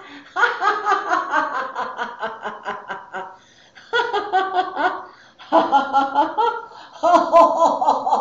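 A woman laughing on purpose as a laughter yoga 'milkshake laugh': rapid ha-ha pulses in four long bouts, broken by short pauses for breath.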